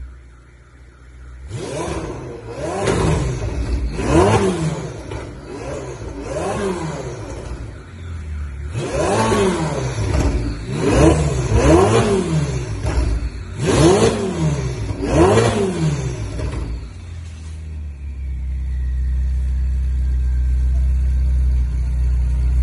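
Ferrari 488's twin-turbo V8 through a decat valvetronic exhaust, blipped about ten times in quick succession, each rev rising and falling sharply. After that it settles into a steady low rumble that grows louder toward the end.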